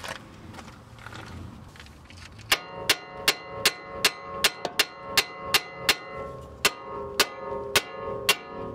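Metal hammer striking a Honda Civic's steering knuckle and the castle nut threaded upside down on the tie rod end stud: about fourteen ringing metal blows, two to three a second, starting a couple of seconds in. The blows are driving the tie rod end's tapered stud out of the knuckle.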